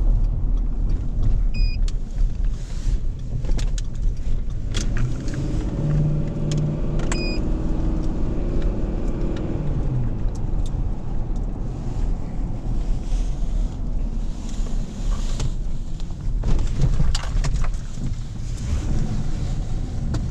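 Car being driven: a steady engine and road rumble, the engine note rising and falling for a few seconds near the middle, with scattered clicks and two short high beeps.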